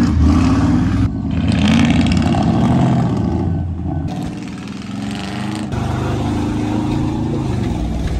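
Vehicle engine running while driving, its pitch rising and falling, with abrupt changes about one and four seconds in.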